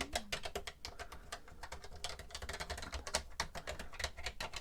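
Keys of a TRS-80 Color Computer 2 keyboard pressed one after another in a quick, uneven run of plastic key clicks, being tried out to check that they all work.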